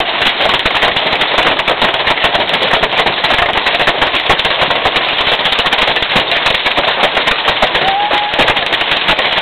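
Large hailstones pelting down in a heavy storm: a loud, dense, unbroken clatter of impacts.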